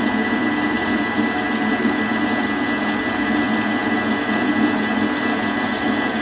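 Thermomix food processor's motor running steadily at speed 4, turning the butterfly whisk as it whips eggs and sugar into a foam. It gives an even mechanical hum with a thin high whine over it.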